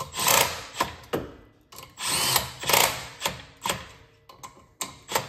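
Small cordless impact wrench hammering the spring-loaded clutch cover bolts snug on a CVT clutch: two bursts of about a second each, then several short blips.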